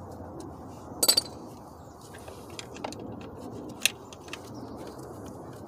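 Metal hand tools clinking: a 10 mm socket and ratchet handled against the engine, with a ringing metallic clink about a second in, a sharp click near four seconds and a few lighter ticks, over a steady low background noise.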